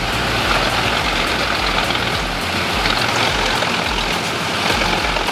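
Large engine-driven wood chipper for big timber running: a loud, steady mechanical noise with a low throb pulsing about twice a second.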